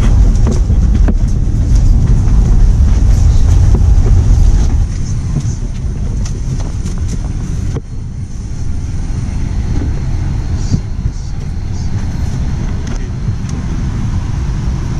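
Steady low rumble of airliner boarding noise: aircraft air-conditioning and machinery heard from the jet bridge and cabin. It is loud for the first five seconds or so, then drops to a softer steady hum, with a few light clicks.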